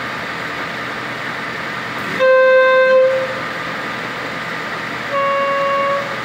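Two boat horn blasts, each about a second long and about three seconds apart, the first louder and a little lower in pitch. Under them the steady drone of the launch's motor and the water.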